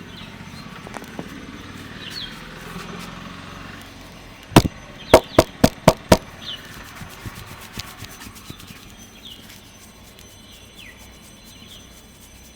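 Six sharp hand slaps in quick succession, a little before the middle, from a barber's hands striking during a head and shoulder massage. Small birds chirp faintly in the background.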